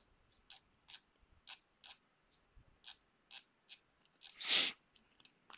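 Faint, scattered clicks at a computer desk, about two a second, with one short breath into a headset microphone about four and a half seconds in.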